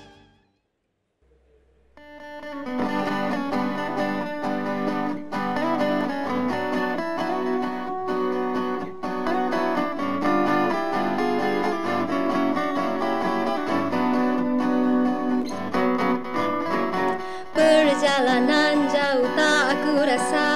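A song fades out, followed by about a second of near silence, then an acoustic guitar backing track begins a new song's intro. Near the end a higher, wavering melody line joins the guitar.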